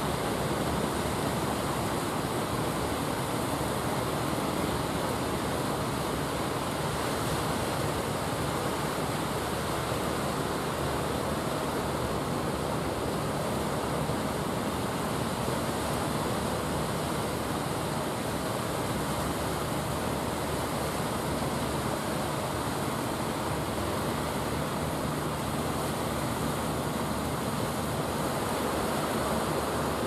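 Ocean surf breaking and washing up the beach in a steady, continuous rush, with a faint low hum underneath.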